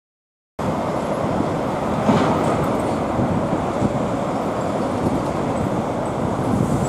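Dead silence for the first half second, then steady street traffic noise: the engines of vehicles queued at a busy city intersection running.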